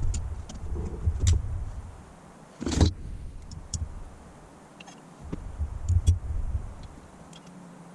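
Scattered light clicks and knocks of parts and tools being handled at a workbench, with one louder knock about two and a half seconds in and a low rumble at the start and again around six seconds.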